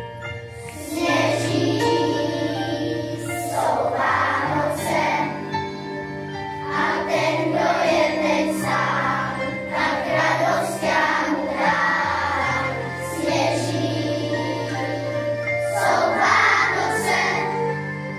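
Children's choir singing a Christmas song in unison, over instrumental accompaniment that holds steady low notes.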